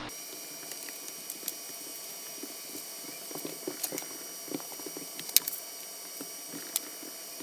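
Scattered, irregular light knocks and clicks of hands working at old carpet on an RV floor, with one sharper click about five and a half seconds in, over a faint steady hiss.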